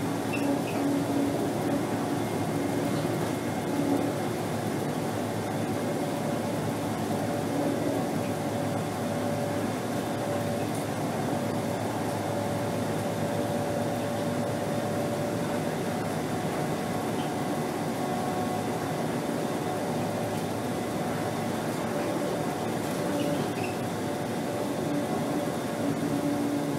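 2010 Scania K270 city bus heard from inside the cabin while cruising at motorway speed: a steady hum of engine and drivetrain over tyre and road noise, with a few faint steady whining tones.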